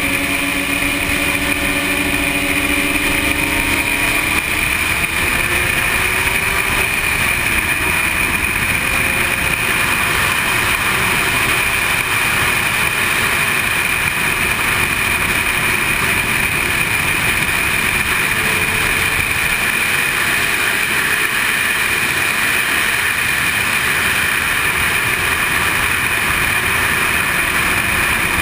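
Motorcycle ridden at speed on a track: loud, steady wind rush over a helmet-mounted camera, with the sport bike's engine running underneath, its pitch rising and falling faintly as the rider works the throttle through the corners.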